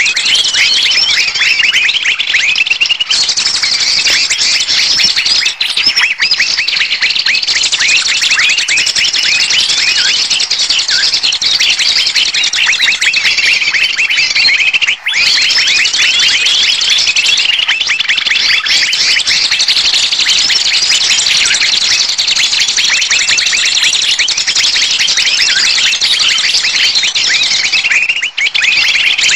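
Bird-luring recording of many small birds calling at once: a dense, loud, unbroken chatter of rapid high-pitched chirps and alarm calls. It breaks off very briefly about halfway through and again near the end.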